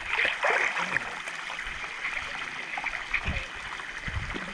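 Stream water trickling and splashing at a shallow waterfall pool, its flow low in the dry season, with a few small splashes.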